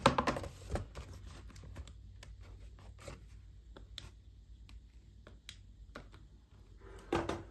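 Handling noise: scattered light clicks and taps as a foam toy glider is handled among plastic toys, with a louder knock and rustle at the start and again near the end.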